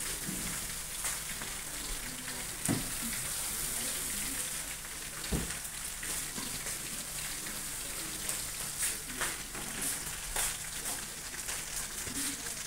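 Food frying in hot oil, a steady crackling sizzle, with a couple of light knocks about a third of the way in and near the middle.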